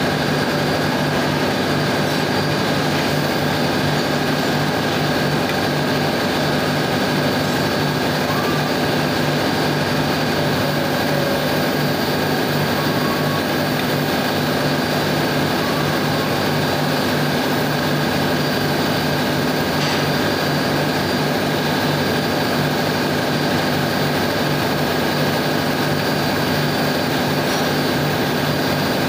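Steady ship's engine-room machinery noise: a loud, unbroken drone with a constant low hum and a thin high whine, and a faint tick or two of tools.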